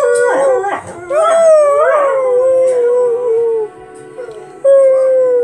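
Greyhound howling: long, wavering howls that slide slowly down in pitch, with a short break about a second in and a pause before another howl starts near the end.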